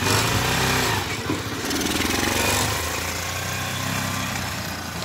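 Small 150 cc ATV engine revving as the quad pulls away, then running on as it rides off. It surges twice in the first few seconds, then settles and grows a little quieter.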